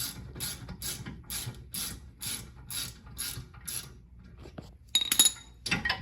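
Hand ratchet clicking in steady strokes, about two a second, as the rear brake caliper piston is wound back; it stops about four seconds in. A sharp metallic clank with a brief ring follows near five seconds, and another knock just before the end.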